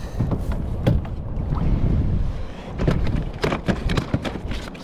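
Wind rumbling on the microphone on a kayak at sea, with irregular sharp knocks and clicks, more of them in the second half.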